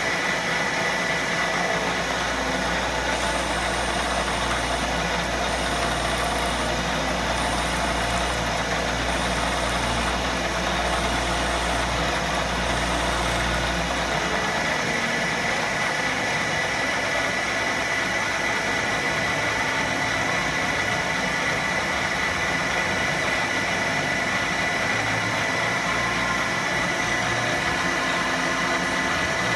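Milling machine spindle running as the cutter machines a hole into an aluminium part: a steady machining whine with a low hum that drops out about halfway.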